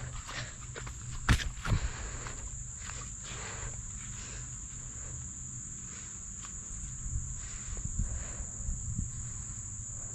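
Steady high-pitched insect chorus, like crickets, with two sharp knocks about a second and a half in and a few softer scuffs later.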